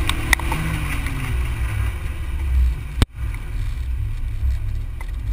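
Toyota Corolla GTS engine and wind rush, heard on a camera mounted outside the car by the front wheel, with the engine note falling as the car slows. A sharp click comes about three seconds in, with a momentary dropout.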